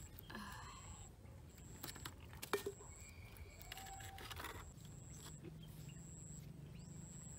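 Faint outdoor ambience with a high, even tone about half a second long repeating about once a second, and a few sharp clicks and taps from handling food on a charcoal grill about two and a half seconds in.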